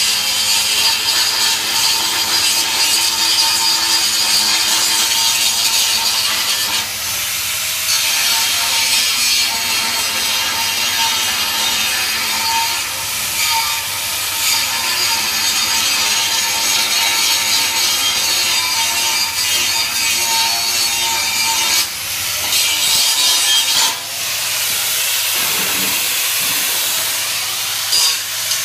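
Steel being ground with a hand-held grinder: a steady, loud grinding hiss with the motor's whine under it, briefly letting up twice in the second half.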